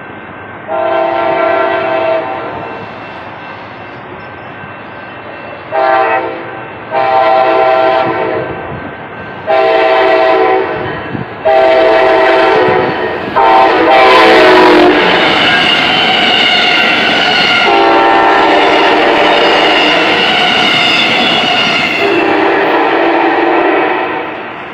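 Amtrak passenger train's locomotive horn sounding a series of blasts, long, short, long, long, then more, as the train approaches. The horn's pitch drops as the locomotive passes about halfway through, and the cars then rush past loudly with the horn still sounding, fading near the end.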